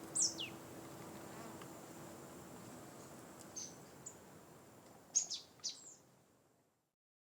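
Forest ambience with a few short, high bird chirps that sweep downward, one just after the start and a quick cluster about five seconds in, over a faint steady high insect-like tone; a low held music note dies away in the first seconds and everything fades to silence shortly before the end.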